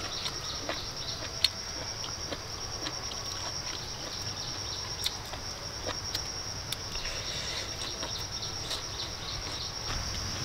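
Steady high-pitched drone of insects singing in the forest, with scattered short clicks from eating close to the microphone.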